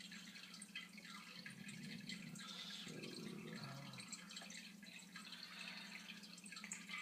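Trading cards being handled and laid down on a table: faint light taps and rustles, over a low steady hum.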